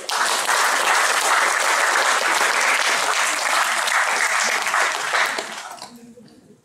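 An audience applauding in a hall: steady clapping that starts all at once, holds for about five seconds, then fades away.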